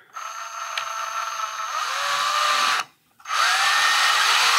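Handheld power drill with a long twist bit boring slowly into a model part held in a vise. It runs in two spells: a steady whine for about two and a half seconds, a brief stop, then a second run of about two seconds.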